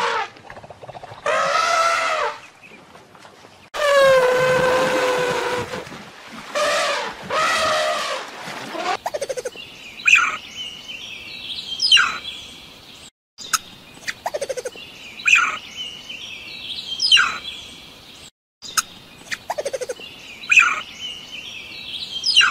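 Elephant calves calling: three drawn-out calls, the middle one falling in pitch. Then, from about ten seconds in, hoary marmots giving short, sharp whistles that fall in pitch, about one every two seconds.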